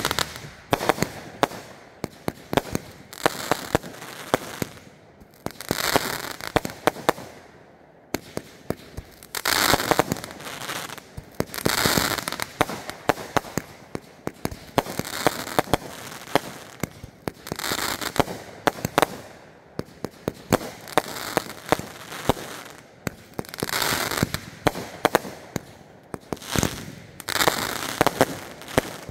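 Aerial fireworks going off in a continuous barrage of sharp bangs and crackling. A swell of hissing crackle comes every two to three seconds.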